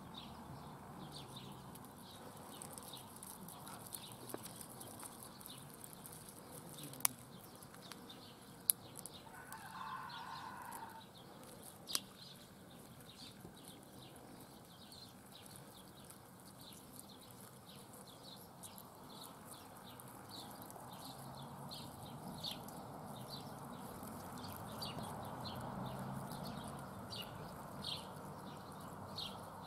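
Faint outdoor birdsong: short chirps repeating several times a second, with three sharp clicks between about seven and twelve seconds in.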